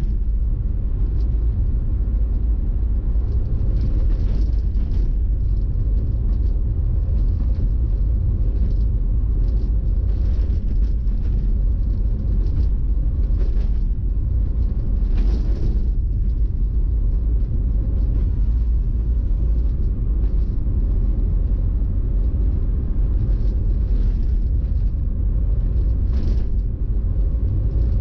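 Steady low rumble of a car driving along a road, engine, tyre and wind noise as picked up by a vehicle-mounted camera, with a few brief hissing swells, the strongest about fifteen seconds in.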